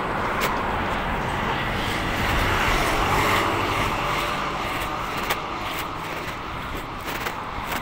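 A motor vehicle passing on the street, its noise swelling to its loudest about three seconds in and then fading, over a few sharp clicks.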